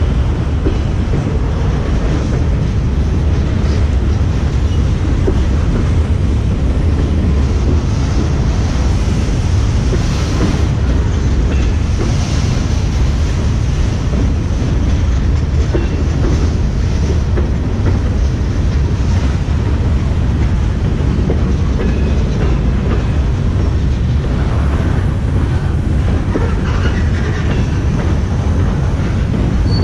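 Freight train cars, boxcars and covered hoppers, rolling past: steel wheels on the rails make a steady, heavy low rumble.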